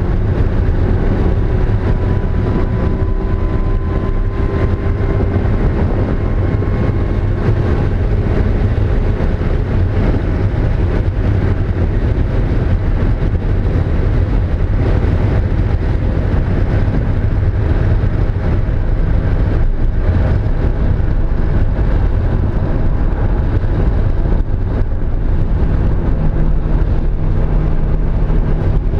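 Mazda Miata's inline four-cylinder engine running continuously under driving load with heavy road and drivetrain noise, its pitch rising slightly over the first several seconds. The car has a misfire on cylinder 2.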